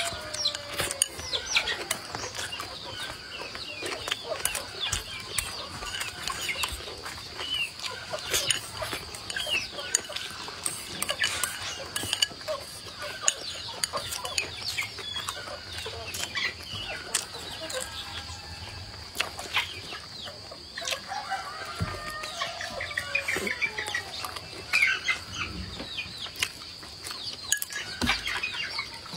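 Chickens clucking on and off, with other birds chirping, over a steady high-pitched whine and scattered clicks of eating.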